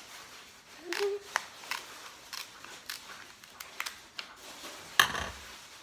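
Kitchen shears snipping through the hard shell of a cooked Alaskan king crab leg: a run of sharp snips and cracks, the loudest about five seconds in.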